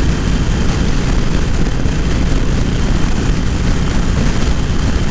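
Motorcycle running steadily under way, its engine drone mixed with heavy wind noise on the camera microphone.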